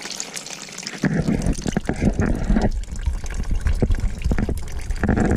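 Engine coolant from an opened drain screw pouring in a thin stream into a plastic basin, splashing and trickling. It grows louder about a second in.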